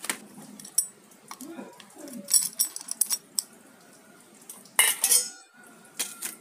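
Small metal parts clinking and rattling as an aluminium motorcycle water pump housing is handled, in scattered sharp clicks. A louder metallic clatter about five seconds in rings on faintly afterwards.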